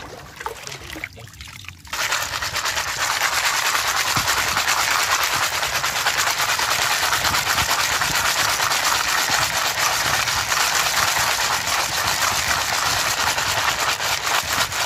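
Wet horn snail shells being rubbed and swirled together by hand in a plastic basin of water to wash them: a dense, steady scraping clatter of many small shell clicks, starting suddenly about two seconds in.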